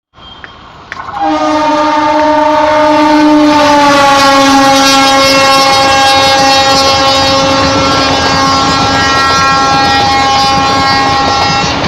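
WAP-4 electric locomotive's horn sounding one long, loud blast of about ten seconds, several tones together. The pitch drops slightly partway through, and the horn cuts off near the end.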